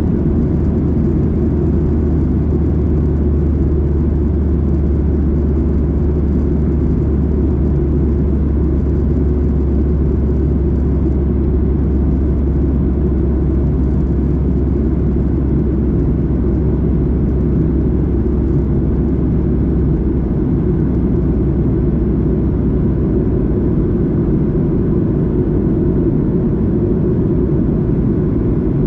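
Cabin noise of a Boeing 737-800 in flight: a steady rumble of engines and airflow, with a deep low hum that eases off about 23 seconds in.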